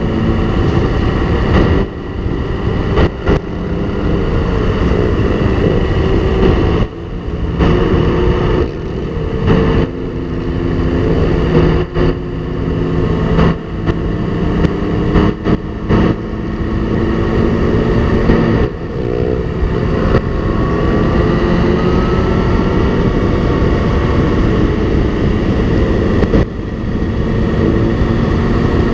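Motorcycle engines running at road speed in a group, with heavy wind rush on the bike-mounted camera. The engine tones hold and shift in pitch, with brief dips in level every few seconds, and a rising whine near the middle.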